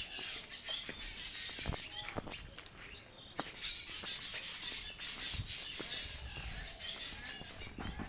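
Several birds chirping and calling over one another in short, rapid notes, with a few sharp knocks.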